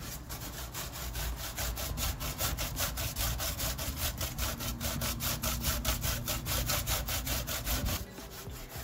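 Peeled cucumber being grated on the fine side of a stainless steel box grater: quick rhythmic rasping strokes, several a second, stopping about eight seconds in.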